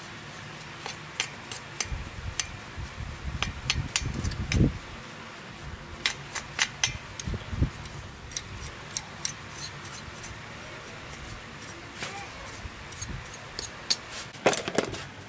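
A stiff paintbrush scrubbing over a small Ryobi grass-trimmer engine's metal casing and cooling fins, with many light clicks and ticks of bristles and brush handle against the metal. A few dull knocks come as the engine is shifted on the floor, the heaviest about four and a half seconds in.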